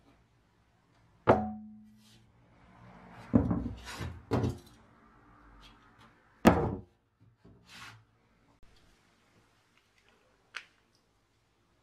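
Rusty pressed-steel lawn mower deck being handled and knocked down onto a wooden workbench: several thuds, the first with a short metallic ring, with scraping between them. A small click comes near the end.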